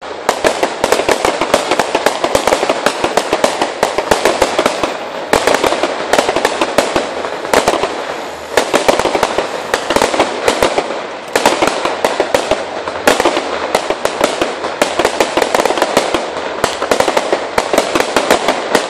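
Fireworks display: a continuous barrage of aerial shells bursting, many bangs and crackles a second, with louder surges of bursts every few seconds.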